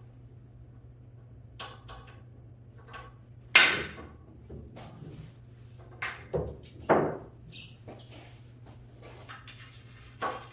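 Sharp clacks of pool cue and balls: one loud hard strike about three and a half seconds in, then three more knocks in quick succession about six to seven seconds in, with a few lighter taps between.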